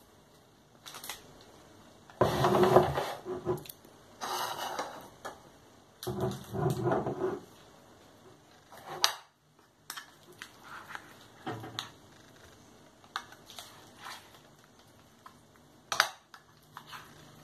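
A metal can of tuna being opened and emptied: a few rough scraping bursts in the first half, then a spoon scraping and clicking against the can and a bowl as the tuna is scooped out.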